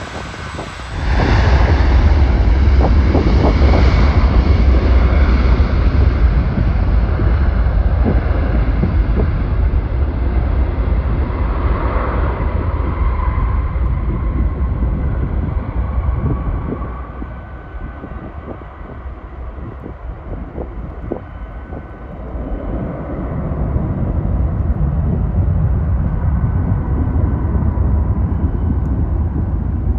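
Boeing 757 taking off: its jet engines come up to takeoff power about a second in, and a deep, steady rumble follows through the takeoff roll. The rumble eases off past the middle, then swells again as the jet climbs out.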